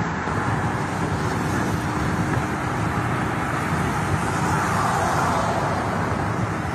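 Steady road noise of a car driving at speed, a constant rush of tyres and engine with no distinct impact.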